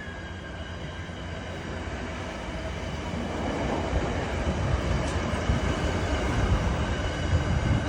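A train drawing nearer, its low rumble and clatter growing steadily louder.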